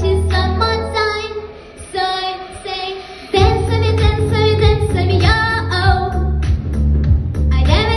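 A young girl singing into a microphone over a pop backing track. The backing's bass drops away about a second and a half in and comes back in strongly a couple of seconds later.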